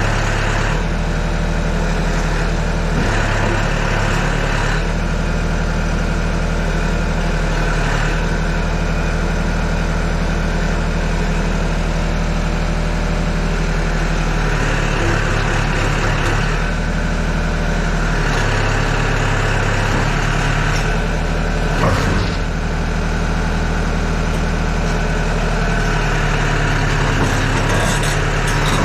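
Yanmar ViO80 excavator's diesel engine running steadily at idle, its note shifting briefly several times. There is a single sharp knock about three-quarters of the way through.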